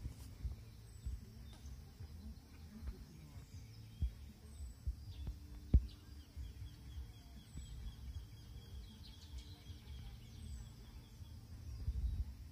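Small birds chirping at the waterside, short high calls repeating every second or two, with a run of chirps in the second half. Under them a low rumble and a few knocks, the sharpest about six seconds in.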